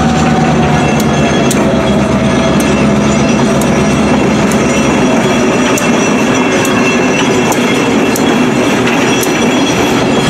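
EMD SW1001 switcher locomotive's eight-cylinder 645 diesel engine running steadily as it rolls past, with sharp clicks about once a second and a faint tone that sags slightly in pitch.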